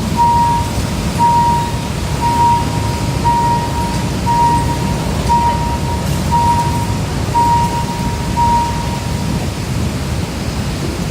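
Steady road-traffic rumble, with an electronic beeper sounding a single-pitch beep about once a second, nine times, then stopping about nine seconds in.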